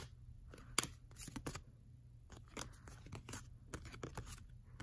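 Baseball cards being flipped through by hand, one off the top of the stack after another: sharp little flicks and slides of card stock, a few a second at an uneven pace.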